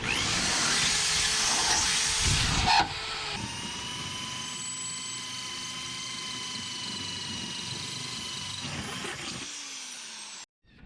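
Electric power tool running: a loud hissing noise for about three seconds, then a steadier high whine with a few fixed tones, which dies away and winds down about nine seconds in.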